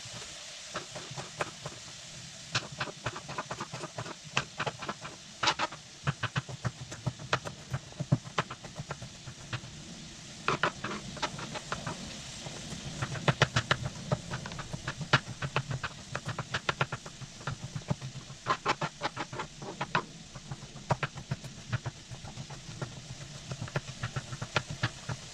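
Kitchen knife mincing garlic on a chopping board: many quick taps of the blade on the board, often in rapid runs, over a steady hiss like a pan sizzling.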